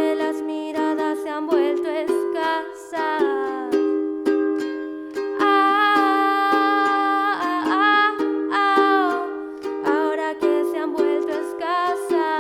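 Live song: a solo voice singing, with long held notes, over a strummed acoustic string instrument.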